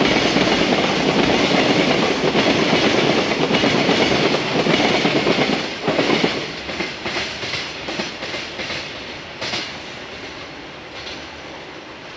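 Container freight train's flat wagons rolling past, wheels clattering over the rail joints. About six seconds in the last wagons go by, and the clatter breaks into separate clicks and fades as the train moves away.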